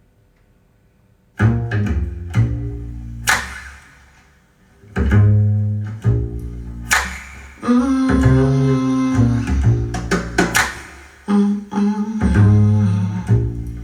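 Instrumental music starting about a second and a half in: plucked string notes over a low bass line, with a few sharp percussive hits.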